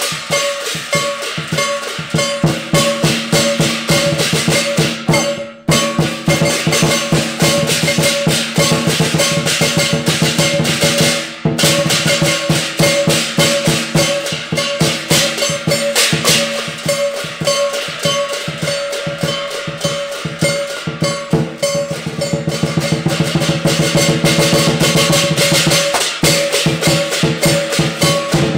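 Lion dance drum beaten in a fast, steady rhythm with several pairs of brass hand cymbals clashing along with it. The playing drops out for an instant twice.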